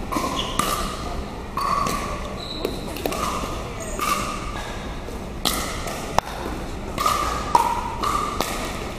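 Paddle hitting a plastic pickleball with a sharp pock about six seconds in, among ball bounces and footsteps on a hardwood gym floor. Each hit rings in the hall's echo.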